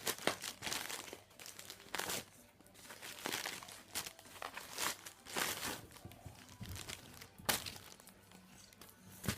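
Parcel packaging being torn open and crumpled by hand: irregular bursts of rustling and ripping, with one sharper rip about seven and a half seconds in.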